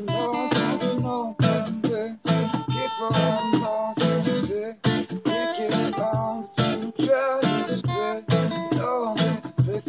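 Acoustic guitar strummed in a steady reggae rhythm, with a voice singing along in places.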